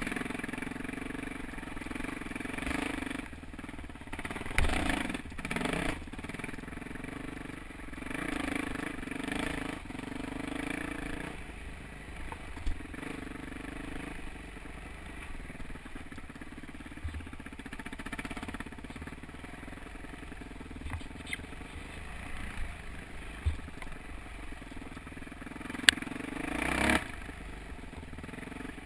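Yamaha YZ426F dirt bike's four-stroke single-cylinder engine under way on a rough trail, revving up and down with the throttle in bursts, then running lower and steadier, with a louder rev near the end. A few sharp knocks come through, one of the loudest just before that last rev.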